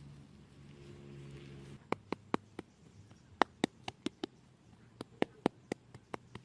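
A faint low hum, then from about two seconds in a run of sharp, irregular taps or clicks, about fifteen in loose clusters.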